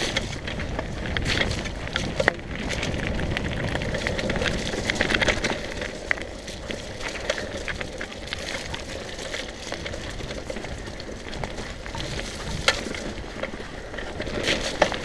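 Mountain bike riding fast down a muddy, stony dirt trail: a steady crackling rush of tyres on wet dirt and gravel, with the bike rattling and sharp knocks over bumps, the clearest about two seconds in and near the end.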